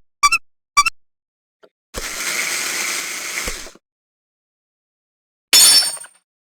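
Cartoon sound effects separated by dead silence: two short pings in the first second, a rattling noise lasting almost two seconds that ends in a thud, then a bright clattering jingle near the end.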